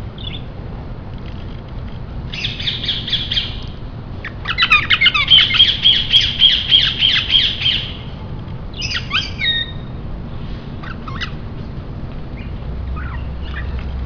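Caged parrots squawking in rapid chattering runs of repeated calls; the loudest, longest run comes from about four to eight seconds in, followed by a few shorter squawks.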